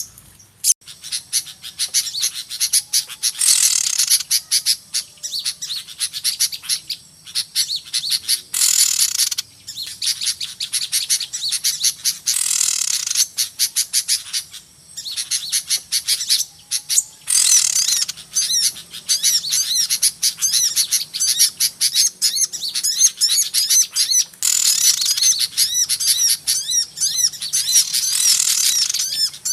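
A dense chorus of many small birds chirping and twittering at a high pitch, with louder flurries every few seconds and a few brief pauses: a noisy flock call of the kind played as a lure to draw small birds in.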